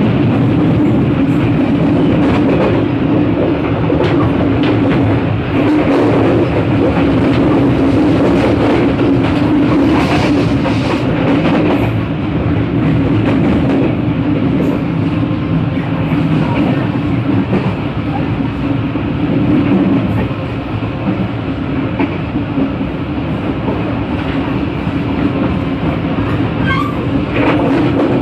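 Passenger train coach running on the line, heard from its vestibule between cars: a steady rumble of steel wheels on the rails with occasional clacks, easing slightly about twenty seconds in.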